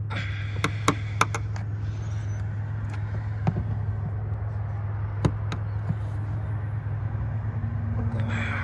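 A handful of sharp clicks and knocks from parts being handled and removed at the car's rear seat fuel pump access, over a steady low hum.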